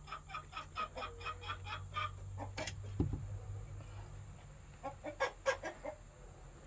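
Chickens clucking: a quick run of short clucks, then another burst of calls near the end. A sharp knock and a dull thump come about three seconds in.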